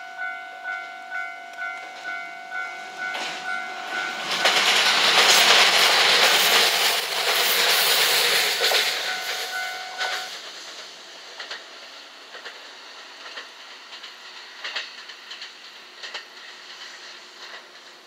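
Japanese level-crossing alarm dinging rapidly, about two and a half rings a second. About four seconds in, a JR West 227 series three-car electric train passes with a loud rush of wheels and motors. The crossing alarm cuts off around ten seconds in, leaving the wheels clacking over rail joints as the train fades away.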